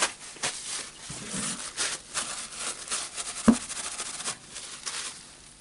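Handling noise from a partly disassembled rotary hammer being moved about on a workbench: irregular clicks, scrapes and light clinks, with one louder knock about three and a half seconds in.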